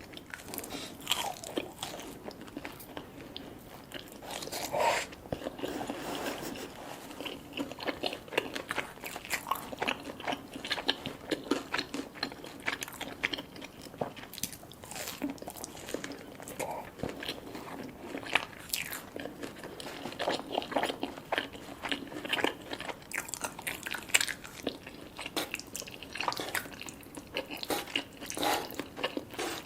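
A person eating close to the microphone: crunchy bites and steady chewing in quick, irregular strokes.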